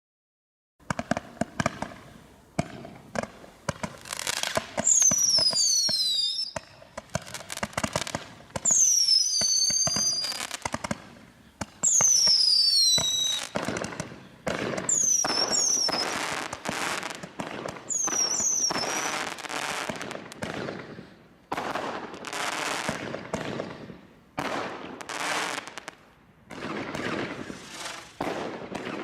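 Consumer firework barrage from a Bright Star 'Desert Storm Crate' pack firing. It starts about a second in with a rapid run of shots and bangs, then longer hissing bursts. Whistles falling in pitch are heard about five times.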